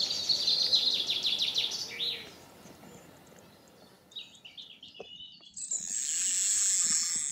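A songbird singing a fast trill of short high notes, which stops about two seconds in. A few short chirps follow about four seconds in, and in the last two seconds a steady high hiss takes over, with a few faint clicks.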